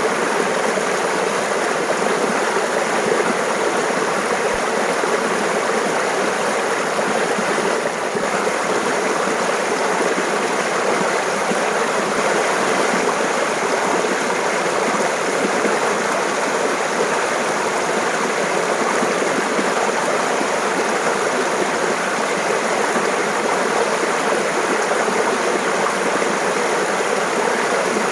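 A shallow stream of water running and burbling over rocks, a steady, even rush.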